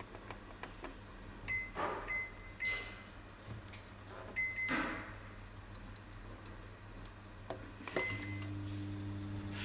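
Samsung microwave oven's keypad beeping as buttons are pressed, several short high beeps, with a little handling noise in between. About eight seconds in, the oven starts up with a steady low hum.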